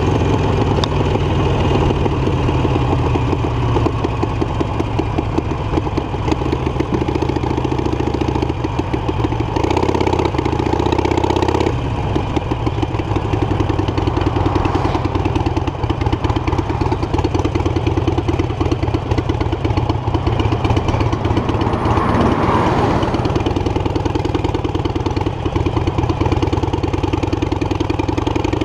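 Harley-Davidson Iron 883 Sportster's air-cooled 883 cc V-twin running through an aftermarket Guerrilla exhaust at low city speeds, a steady throbbing beat. Its pitch rises and falls with the throttle, swelling about ten seconds in before cutting back.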